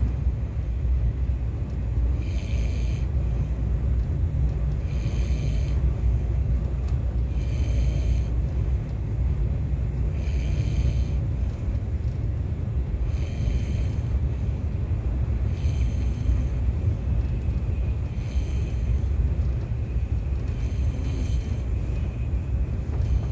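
A man snoring, a rasping snore about every two and a half seconds, over the steady low rumble of a KTX high-speed train under way.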